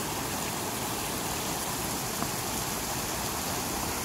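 River water running over rocks in shallow rapids: a steady, even rush.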